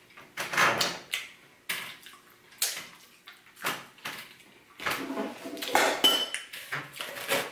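Plates and cutlery being handled on a table, heard as a series of short clinks, knocks and scrapes that grow busier in the second half. A brief ring comes about six seconds in.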